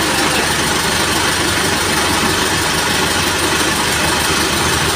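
Boom truck's engine running steadily, powering the crane as it holds and slowly turns a suspended truck cab.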